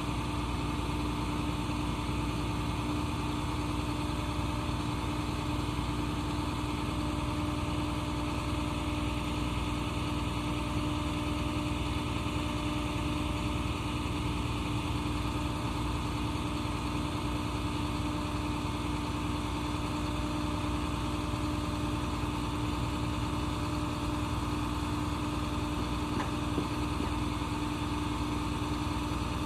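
Flatbed tow truck's engine idling steadily, an even hum that does not change.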